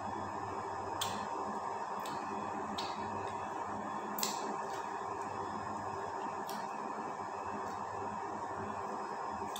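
Wet lip smacks and finger-sucking while eating with the hands: a handful of short sharp smacks spaced a second or more apart, over a steady low room hum.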